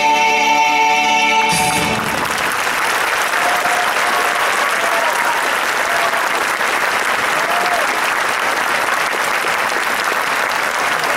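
A band and choir's final chord rings out and ends about two seconds in, then an audience applauds steadily, with a few brief calls from the crowd.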